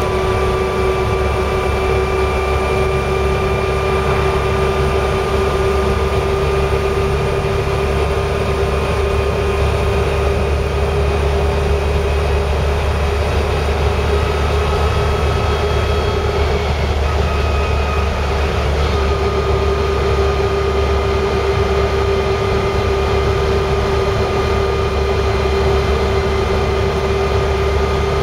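Land Rover Series 3 on the move, heard from inside the cab: engine and freshly rebuilt drivetrain running steadily with a constant whine over the road noise. The pitch wavers briefly a little over halfway through. The drivetrain is slightly noisy, which the owner puts down to a bearing somewhere, and the back axle is the noisy part.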